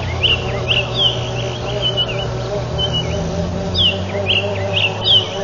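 Birds calling with quick, sharp downward-sweeping chirps, repeated throughout, over a steady low hum and a wavering insect-like drone.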